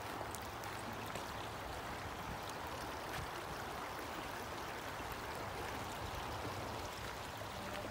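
Shallow river flowing over a gravel bed: a steady rush of running water.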